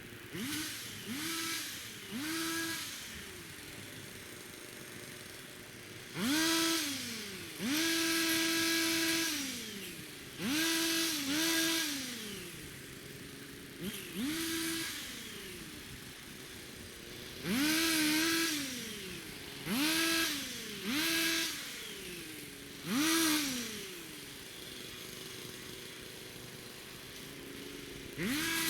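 Two-stroke chainsaw idling and revved in about a dozen short bursts; the pitch climbs quickly, holds, and drops back to idle after each, as it cuts tree branches.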